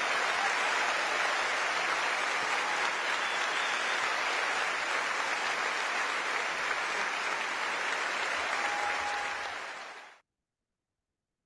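A large concert-hall audience applauding, a steady even clatter of clapping. It dies away abruptly about ten seconds in.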